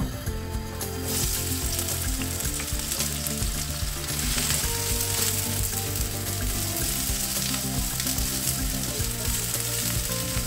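Chopped onion sizzling in hot olive oil in a non-stick frying pan over medium heat, stirred with a wooden spatula. The sizzle starts about a second in, as the onion goes into the oil, then holds steady.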